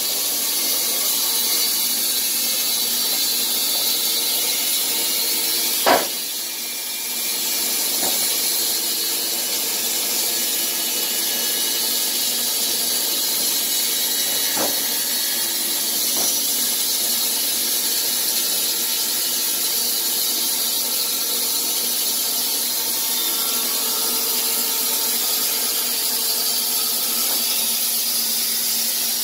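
A squared timber being handled and shifted on the steel bed of a Wood-Mizer LT15 band sawmill: a sharp knock about six seconds in and a few lighter knocks later, over a steady hiss.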